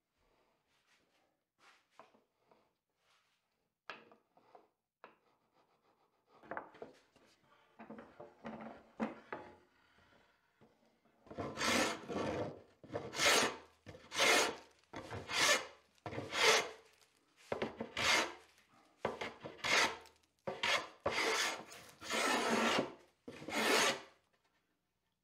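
Wooden hand plane shaving the edge of a board, about ten loud strokes a little over a second apart in the second half, after a few faint taps and softer strokes.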